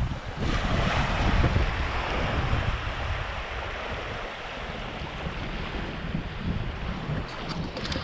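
Gulf of Mexico surf washing on a beach, with wind gusting across the microphone in uneven low rumbles.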